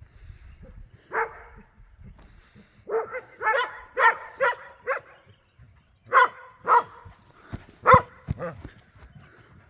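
A dog barking: a string of short, single barks, some in quick runs, with pauses between them.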